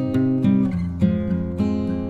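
Background music: an acoustic guitar strumming chords, a new chord about every half second.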